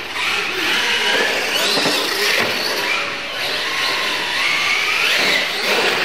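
Radio-controlled monster trucks launching and racing: their electric motors whine, the pitch rising and falling as they speed up and ease off.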